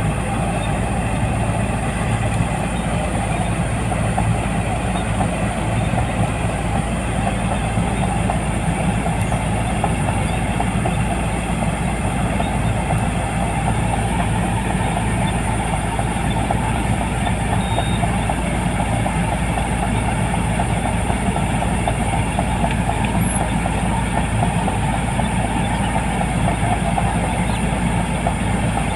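Rice combine harvester running steadily: a constant diesel engine hum under the even rushing noise of the threshing machinery, with a faint high whine.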